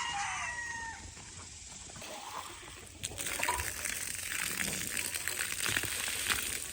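A rooster's crow trails off at the start. About three seconds in, water is turned on and runs steadily, splashing into an animal waterer.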